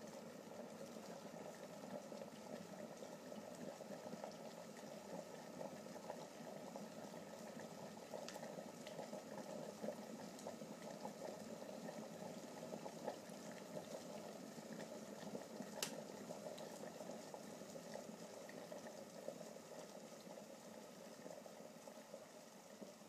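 Water bubbling steadily at a rolling boil, faint, with a sharp click about two-thirds of the way through.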